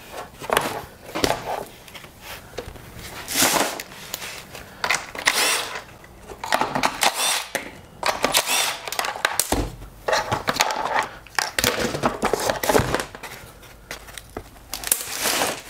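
Cordless Milwaukee Fuel driver running in short bursts to back out the bolts holding a Honda lawn mower engine's plastic shroud and recoil starter. The plastic covers clatter as they are worked loose and lifted off.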